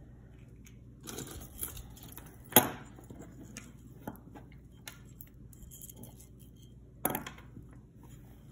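Metal jewelry being handled on a tabletop: a silver-tone mesh chain necklace and its pendant clink and rustle, with a sharp knock about two and a half seconds in and another about seven seconds in.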